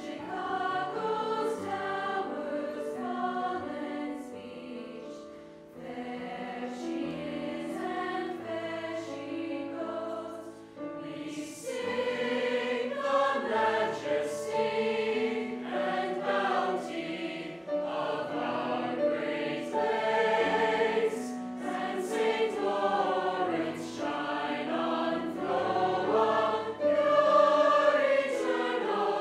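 High school choir singing a choral anthem in several voice parts, holding long notes, with brief breaks between phrases about six and ten seconds in.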